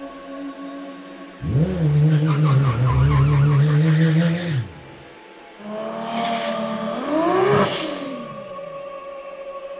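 Car sound effects: a car engine comes in loud and holds a steady note for about three seconds, then cuts off; after a short gap a tyre squeal with rising, sliding pitches lasts about three seconds.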